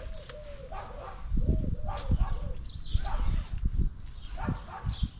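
An animal's short, repeated calls in two quick runs, with a few higher chirps later on.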